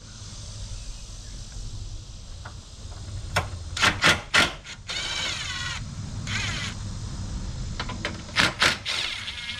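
Clicks and knocks of metal tools and parts being handled, in two short clusters, with two brief wavering squeaks between them, as brackets are worked off the car's front end.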